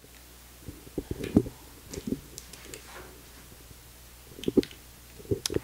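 Handling noise from a camera being moved and set up: scattered short knocks and clicks in clusters about a second in, around two seconds and near the end, over a faint low steady hum.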